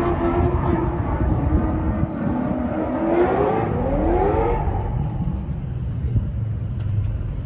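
Car engine holding a steady note, then revving up with a rising pitch between about three and four and a half seconds in, over a steady low rumble.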